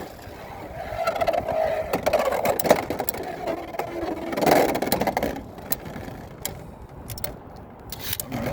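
Beyblade X spinning tops whirring in a plastic stadium, with sharp clacks as they hit each other and the stadium walls; the whirr dies away a little after five seconds in.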